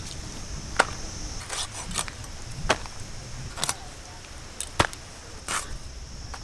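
Chitol fish being sliced into belly pieces on a boti blade: about seven or eight sharp, irregularly spaced clicks and knocks of the blade and fish pieces on the banana leaf. A steady high insect hiss runs through the first second or so.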